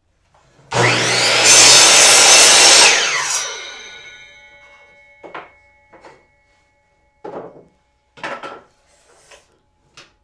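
Sliding compound miter saw motor spinning up, its blade cutting through a piece of wood, then winding down with a falling whine. After that come about six short knocks as the cut wooden blocks are handled and set down.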